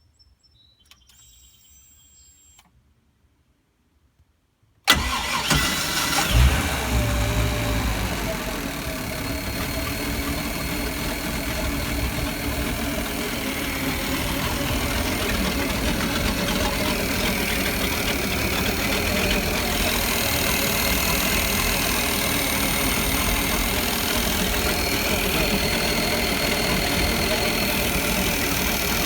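Mercruiser 350 small-block V8 marine engine starting suddenly about five seconds in, surging briefly, then settling into a steady idle.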